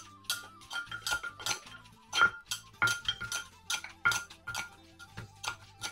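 Wooden pestle pounding pickled bamboo shoots and fish in an earthenware mortar, with a metal spoon turning the mix. Irregular knocks, about three a second, some with a short clinking ring.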